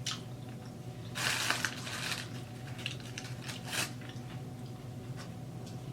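Crunching of fried chicken wings, bitten and chewed close to the microphone, with a louder stretch of crunching about a second in and a shorter one near the middle.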